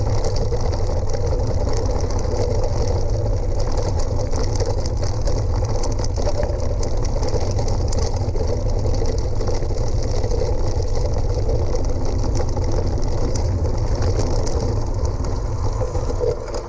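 Wind rushing over the action camera's microphone while mountain-bike tyres crunch and rattle over loose gravel and stones on a fast descent, with a constant patter of small clicks. The noise starts to die away near the end as the bike slows.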